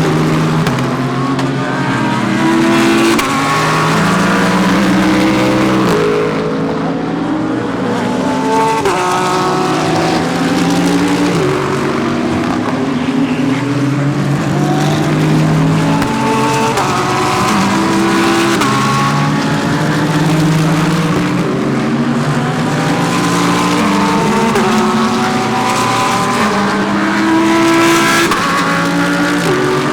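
Several GT3 race cars running through a corner, one after another and often overlapping, their engines rising and falling in pitch as they brake, change gear and accelerate away.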